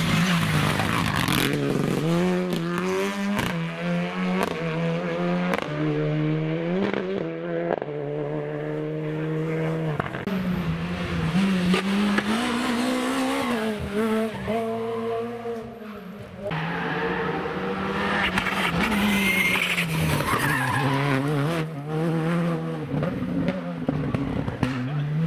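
Rally car engine at full throttle, its pitch climbing again and again as it shifts up through the gears, then falling away. The sound drops out abruptly about two-thirds of the way through and then picks up again.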